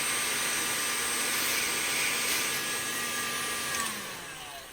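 Electric paint stripper (heat gun) with a narrow nozzle attachment blowing hot air: a steady rush of air with a motor whine. About four seconds in it is switched off and the whine falls in pitch as the fan runs down.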